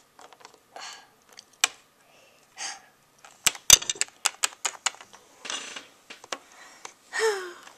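Irregular clicks and taps of hard plastic Littlest Pet Shop figurines being handled and knocked together, with a quick run of sharp clicks about halfway through and soft rustling between them.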